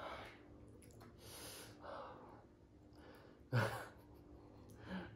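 A person breathing audibly, several breaths about half a second long, with one short louder breath or vocal sound about three and a half seconds in.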